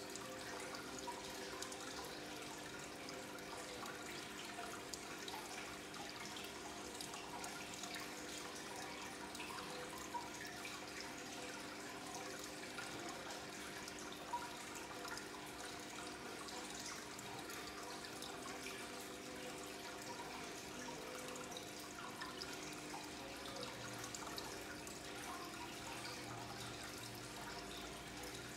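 Aquarium water bubbling and trickling steadily, with small drips and splashes, from an air line's bubbles breaking at the surface of the tank. A faint steady hum runs underneath.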